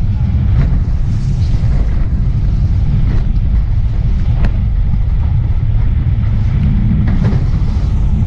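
Motorboat running at high speed over choppy water, heard as a heavy wind rumble on the boat-mounted camera's microphone, with the hull slapping sharply on the waves several times.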